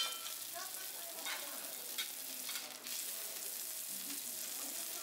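Food sizzling steadily on a teppanyaki iron griddle, with about four sharp metal clinks of the cooking utensils against the hot plate, the first with a brief ring.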